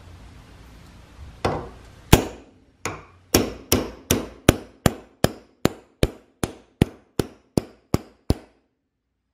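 Hammer blows on metal: about seventeen sharp strikes, the first few uneven, then a steady beat of two to three a second, stopping short near the end.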